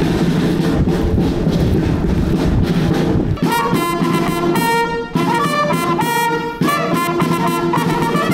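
Marching band playing: drumming at first, then about three and a half seconds in the brass comes in with held notes, in phrases broken by short pauses.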